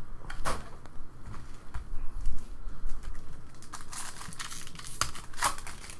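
A 2015-16 O-Pee-Chee Platinum hockey card pack being torn open by hand: its wrapper rustles and crinkles, with a few sharp crackles, the loudest in a cluster near the end.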